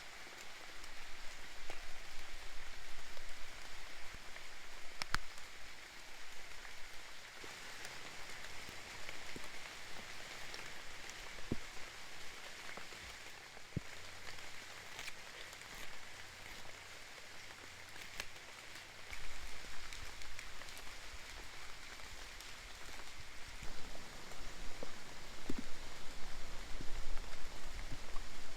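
Steady rain falling, with a few scattered sharp ticks and pops.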